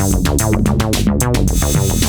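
Novation Peak synthesizer playing a resonant bass patch as a rapid sequence of short repeated notes at 110 bpm, over an electronic drum-machine beat.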